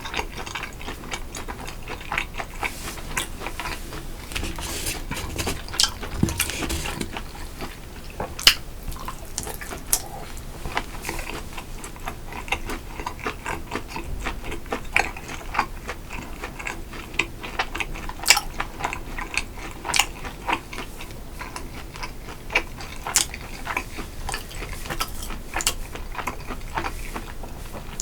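Close-miked eating sounds: frequent small, sharp clicks and clinks of utensils against dishes, mixed with chewing.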